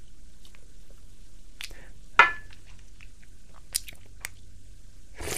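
Close mouth noises from a man sipping from a cup: scattered small lip and tongue clicks and smacks, a louder sharp one about two seconds in and another near the end.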